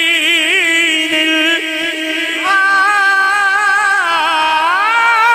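A man singing a naat unaccompanied into a microphone, drawing out long ornamented notes with a wavering vibrato. The pitch steps up about two and a half seconds in, then dips and climbs again near the end.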